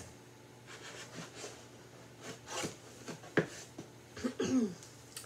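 A cardboard board book's page being turned and the book handled on a wooden tray: soft rubs and light taps, with a sharper tap about three and a half seconds in. A short, low voice sound comes near the end.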